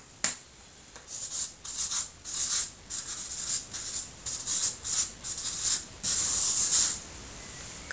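Marker pen writing on flip-chart paper: a string of short, scratchy strokes, then one longer stroke about six seconds in.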